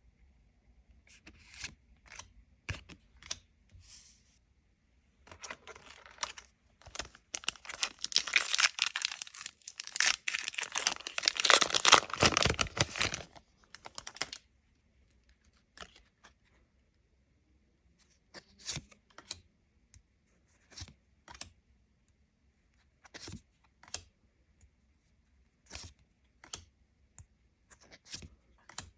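A trading-card booster pack's wrapper being torn open and crinkled for several seconds, then the cards inside handled, with scattered sharp clicks as they are flicked and slid through the hands.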